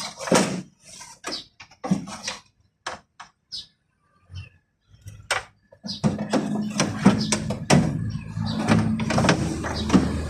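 Scattered clicks and knocks, then about six seconds in a motor starts running with a steady hum and a light rattle.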